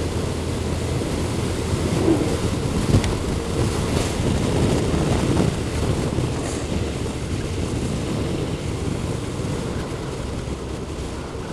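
Motorcycle cruising on a country road, heard from the onboard camera: a steady engine hum under a rush of wind noise on the microphone, easing a little near the end.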